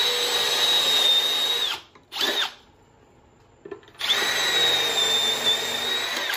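Cordless drill with a 6-inch-long bit boring pilot holes, running with a steady high whine for about two seconds before stopping. A short burst winds down, and after a pause a second run of about two seconds stops abruptly near the end.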